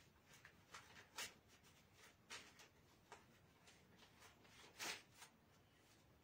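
Faint scratching of a marker pen writing on a whiteboard: a string of short strokes, the loudest about a second, two seconds and nearly five seconds in.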